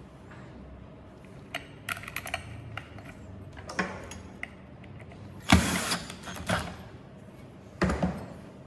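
Parts of a belt sander being handled and fitted by hand while its cooling fan goes onto the motor: scattered clicks and knocks, with a louder scraping rattle a little past halfway and a couple of knocks near the end.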